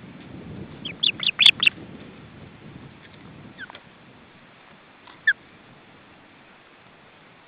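Juvenile ospreys calling: a quick burst of five or six sharp, downslurred whistles about a second in, then two single calls later on. Low wind rumble on the microphone runs under the first part.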